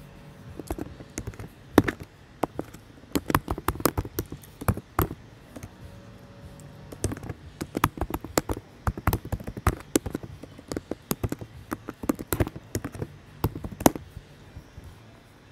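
Typing on a computer keyboard: quick runs of keystroke clicks broken by short pauses, with a few harder single strikes.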